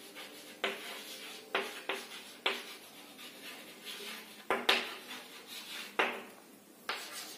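Chalk writing on a chalkboard: a series of strokes, each beginning with a sharp tap of the chalk on the board and trailing off into a short scratch, about seven in all.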